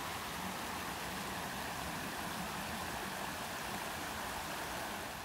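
Shallow creek water rushing steadily over rocks in a small riffle.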